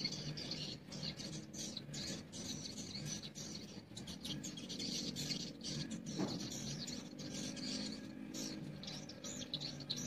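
Swiftlets twittering: a rapid, continuous stream of short high chirps, with a low steady hum underneath.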